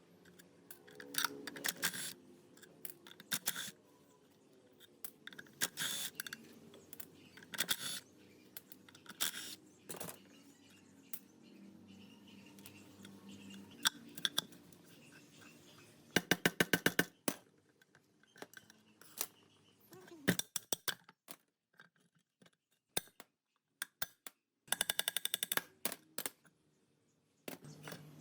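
Workshop handling sounds of metal tools and parts: scattered clinks and knocks, with two short runs of rapid, even clicking, one about midway and one near the end.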